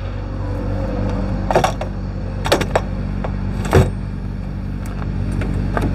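Kenworth W900 semi truck's diesel engine idling steadily, with a few short knocks and clatters as a side storage compartment is opened and the gear inside is handled.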